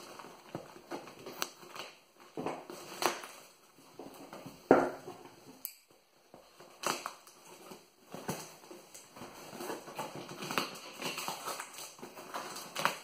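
Packing tape being cut with scissors and torn from a cardboard box, with the cardboard crinkling and scraping: irregular rasps and clicks with short pauses, the loudest about five seconds in.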